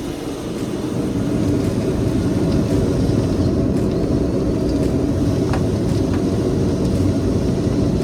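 Dryer vent cleaning equipment running in the duct: a steady low rumbling drone that builds slightly about a second in and then holds level.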